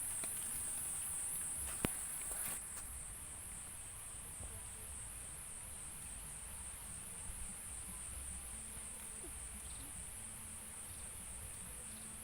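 Insects shrilling in a high, steady chorus with a slight pulsing, louder for the first two and a half seconds. A single sharp click comes a little under two seconds in.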